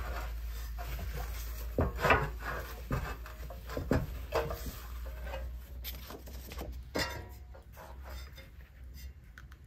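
A tissue rubbed and wiped over a glazed ceramic plate: a run of soft rustles and light knocks of the plate against the charger under it, loudest about two seconds in and thinning out after about seven seconds. A steady low hum lies underneath.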